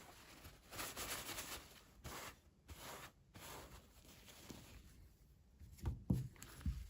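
Toy packaging rustling and scraping as it is handled during an unboxing, followed near the end by a few soft knocks.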